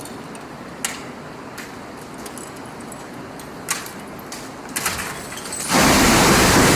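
A few faint clicks and knocks over a low hiss, then a loud, steady rushing noise starts a little under six seconds in.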